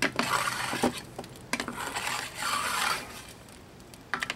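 A long-handled brush scraping and sweeping hot coals and embers across the floor of a wood-fired oven in two strokes, the second starting about a second and a half in, with a few clinks of coals.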